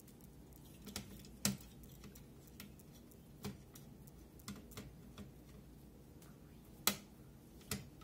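Irregular clicks and taps of a hand screwdriver turning the spring-loaded screws of a CPU heatsink on a computer board, with two louder clicks about one and a half seconds and seven seconds in.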